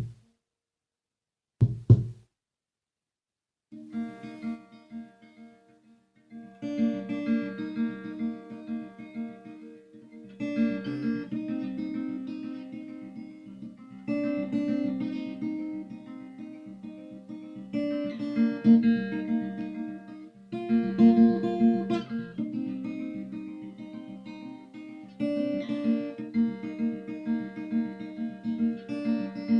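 Acoustic guitar playing an instrumental intro of chords with a steady pulse, coming in about four seconds in and swelling and easing in waves. It is preceded by two short, low thumps about two seconds apart.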